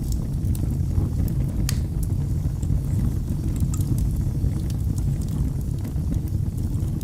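Wood fire burning in a fireplace: a steady low rumble with scattered sharp crackles and pops from the burning wood, one louder pop about two seconds in.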